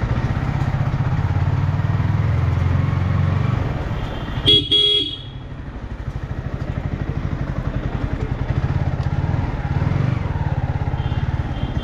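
Yamaha R15M motorcycle's single-cylinder engine running at low speed, with a horn honking twice in quick succession about four and a half seconds in. After the honks the engine settles into a quieter, even putter.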